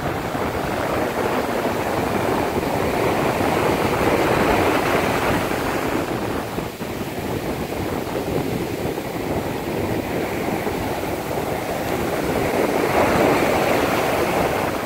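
Sea surf on a beach: a steady rush of breaking waves that swells about four seconds in and again near the end.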